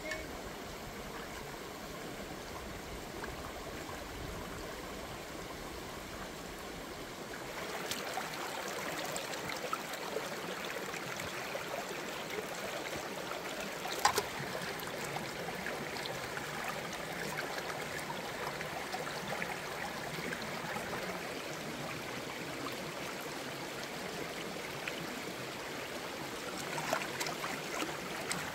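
Shallow rocky stream babbling steadily, a little louder from about a quarter of the way in, with one sharp knock about halfway through and a few small knocks near the end.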